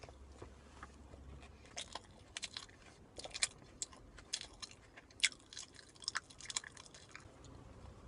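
Close mouth sounds of a man biting into and chewing a wheat tortilla wrap: quiet, irregular clicks and small crunches, a little louder in the middle.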